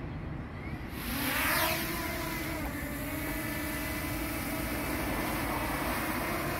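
Small quadcopter drone's propellers spinning up for takeoff about a second in, then holding a steady whine of several pitches as it hovers low. A low rumble runs underneath.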